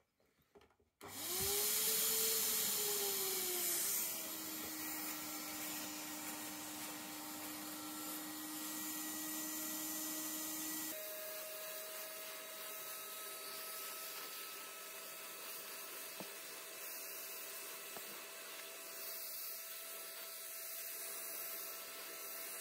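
Electric paint spray gun starting up about a second in, its motor whining as it spins up and then settling to a steady hum over a strong hiss of air and paint spray. About halfway through the whole sound jumps to a higher pitch because of sped-up playback.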